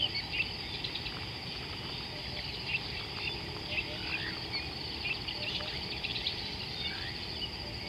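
Several birds calling together, with many short chirping and twittering notes and a few slurred whistles, over a steady high-pitched insect drone.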